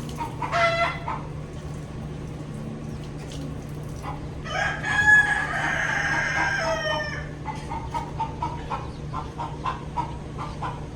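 A rooster crowing: one long crow of about three seconds in the middle, after a brief call near the start, with soft repeated clucking throughout over a steady low hum.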